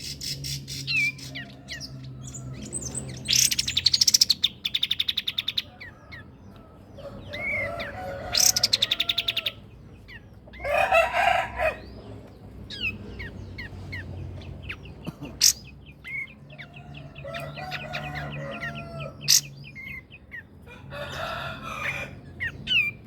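Songbirds singing a varied string of chirps, whistled glides and fast rattling trills: a masteran tutor song of the kind played to train cage birds such as the white-rumped shama (murai batu), oriental magpie-robin (kacer) and greater green leafbird (cucak ijo).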